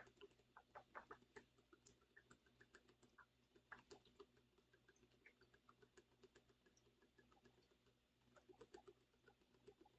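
Near silence with faint, irregular small clicks and ticks, several a second, over a low steady hum.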